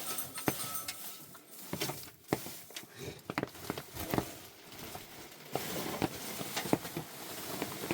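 Scattered light taps and knocks at irregular intervals over a steady hiss, with the hiss growing denser in the second half.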